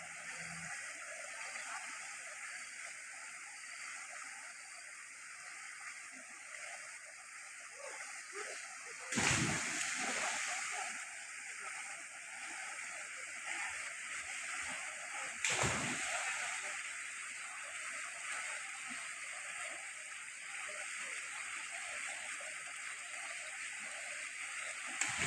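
Steady rush of flowing floodwater, with two sudden loud thumps about nine and fifteen seconds in.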